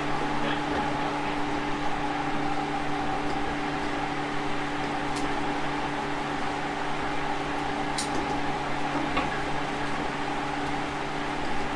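JR Kyushu 811 series electric train running at a steady speed, heard from on board: a constant hum and whine, the loud 'jet sound' the title is about. A couple of sharp clicks come through about five and eight seconds in.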